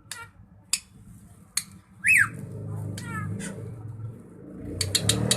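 Drongo singing a varied song of sharp, harsh calls spaced about a second apart, with a whistle that rises and falls about two seconds in and a quick run of harsh notes near the end. A low rumbling noise runs underneath from about two seconds in.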